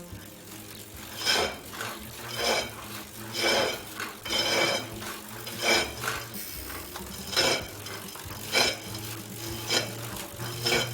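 Tacx Neo-series trainer motor brake making a metallic scraping noise about once a second, in time with the pedal strokes, over a steady low hum. This is typical of a problem with the hub axle at the centre of the motor brake.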